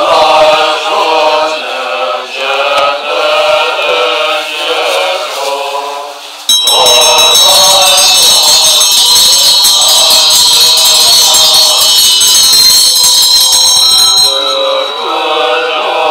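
Tibetan Buddhist monks chanting prayers together. About six seconds in, a high bright ringing, like a ritual bell rung without pause, joins the chant with a rattle beneath it. It stops about eight seconds later while the chanting continues.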